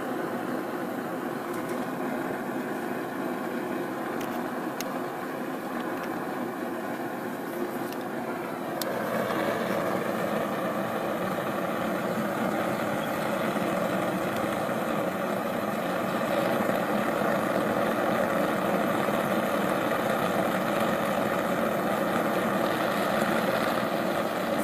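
Propane forge burner, a homemade 3/4-inch pipe burner, running with a steady rush of gas flame. It grows louder about nine seconds in and stays that way.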